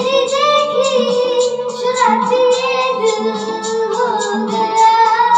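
A boy singing a Hindi film song into a handheld microphone over backing music with a steady beat.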